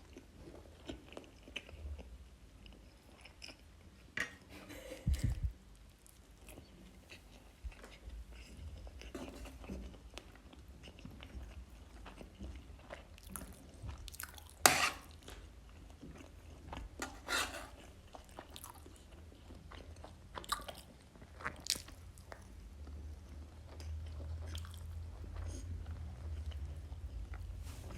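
A person chewing and biting food close to the microphone, with scattered sharp mouth clicks and smacks; the loudest comes about halfway through.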